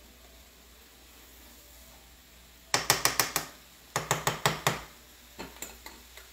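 Cooking utensil knocked rapidly against the rim of a skillet: two quick runs of sharp clicking knocks about a second apart, then a few lighter taps.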